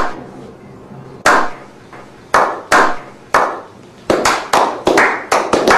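A series of sharp knocks or impacts, about a dozen: spaced about a second apart at first, then coming faster, several a second, in the second half.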